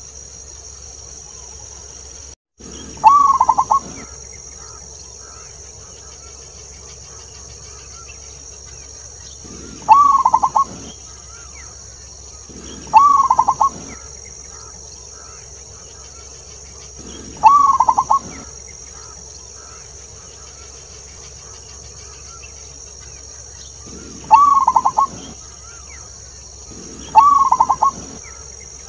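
Zebra dove (perkutut) cooing: six calls a few seconds apart, each about a second of rapid, rolling coo notes, over a steady high background hiss.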